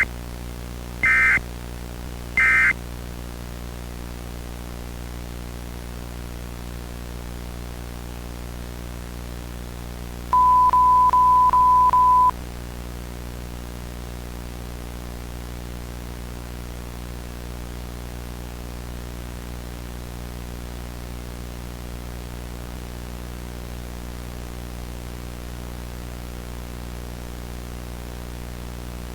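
Electronic broadcast signal tones: three short high beeps about a second apart, then about ten seconds later a single steady, lower-pitched pure tone held for about two seconds. Under them runs a constant electrical hum with static hiss.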